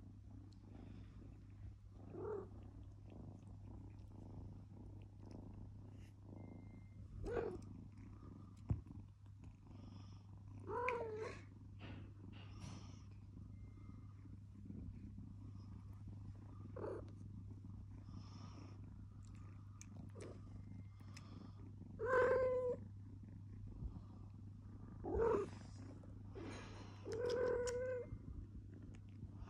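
Domestic cats purring steadily, with about seven short meows spread through, the loudest three in the last third.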